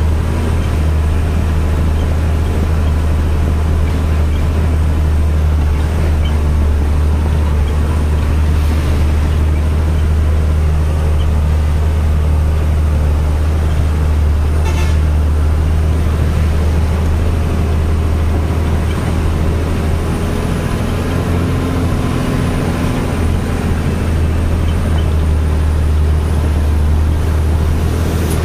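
Truck's diesel engine running steadily under load on an uphill climb, a deep drone heard from inside the cab.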